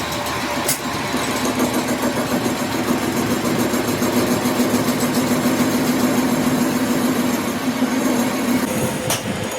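A workshop machine motor running steadily with a low hum, with two sharp clicks, one about a second in and one near the end.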